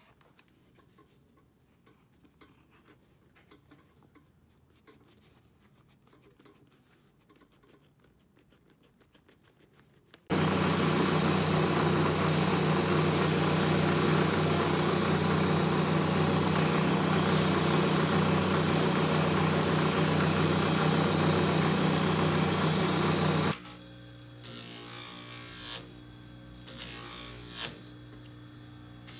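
Faint ticks of handwork at first. About ten seconds in, a shoe finishing machine comes in suddenly and loud, its sanding wheel running steadily with a motor hum as it grinds the edge of a new crepe boot sole, until it cuts off suddenly about thirteen seconds later. After that a quieter machine runs with a few short, louder bursts.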